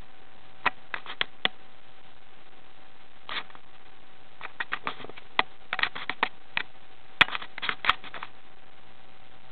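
Irregular clusters of short, sharp clicks and ticks, a few at a time, over a steady hiss with a faint steady tone.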